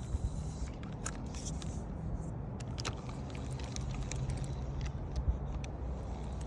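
An engine running steadily with a low hum, with scattered small clicks and rattles over it.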